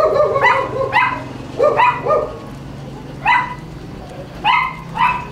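Dog barking repeatedly: about nine short barks, a few in quick succession, with deeper barks mixed in during the first two seconds.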